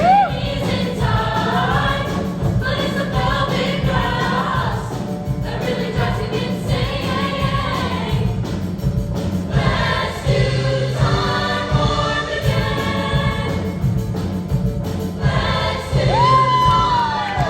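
Junior high girls' choir singing with musical accompaniment.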